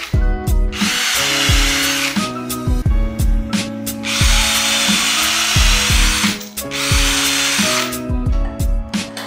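Cordless drill running in three bursts of a second or two each, boring into a wooden frame, with a whine that wavers slightly. Background music with a steady beat plays throughout.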